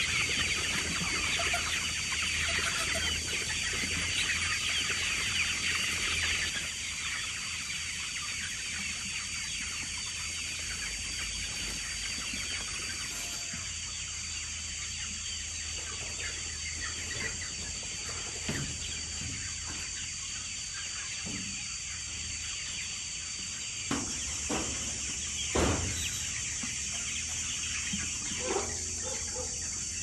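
A large flock of young chickens clucking and peeping in a dense chatter, which drops off about six seconds in to fainter, scattered clucking. A few sharp knocks sound about two-thirds of the way through.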